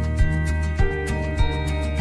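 Background music: soft instrumental with held notes and a steady beat.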